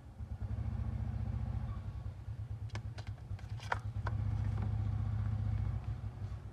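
A steady low mechanical hum with a fast flutter, like a small motor running, and a few sharp clicks or taps about three to four seconds in.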